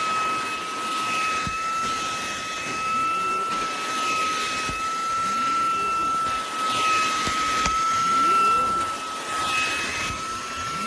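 Cordless handheld vacuum (Fanttik Slim V10 APEX) running, its small motor giving a steady high whine over a rush of air that swells and fades every second or two as it is worked.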